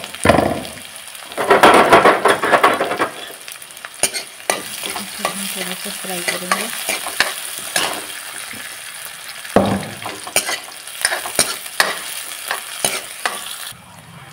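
Chopped onions sizzling in hot oil with cumin seeds and green chilli in a metal kadhai, being stirred so the steel ladle scrapes and clicks against the pan. The sizzle is loudest in the first few seconds, with another loud stir about ten seconds in.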